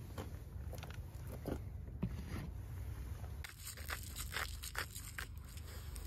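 A dog chewing and crunching, sharp crunches that come a few at a time at first and then about three or four a second from about halfway on.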